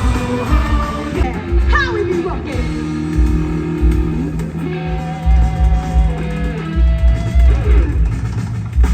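Loud guitar-led rock music with a heavy pulsing bass beat.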